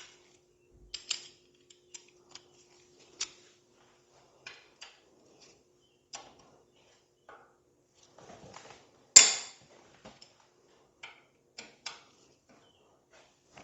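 Hand tools such as wrenches and sockets clinking and knocking against metal in scattered light clacks, with one sharp, much louder metallic clack about nine seconds in.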